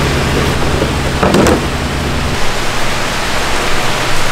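Steady rushing of running water and aeration in live-fish holding tanks, over a low machine hum that drops away about halfway through. A brief knock about a second and a half in.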